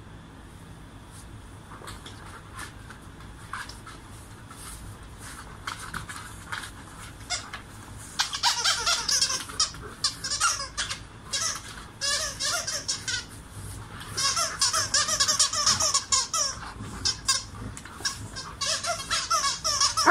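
Squeaky dog toy squeaking over and over in quick runs as a dog mouths and tugs at it. The squeaking starts about eight seconds in and comes in bursts.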